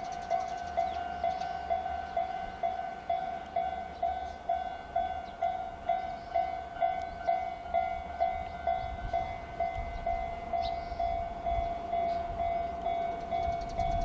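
Japanese level-crossing alarm sounding the JR standard warning tone: an electronic ding repeating evenly a little over twice a second. A train's low rumble grows over the last few seconds.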